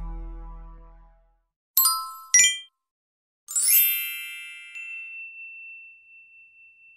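Drama background music fading out, then a channel logo sting of chime-like dings: two quick bright dings, then a shimmering ding that rings out on one long high tone, slowly fading.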